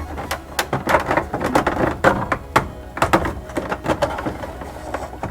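Irregular knocks and clicks of plastic and rubber dashboard parts being handled as a vent's rubber hose is pushed onto the vent duct under the dash.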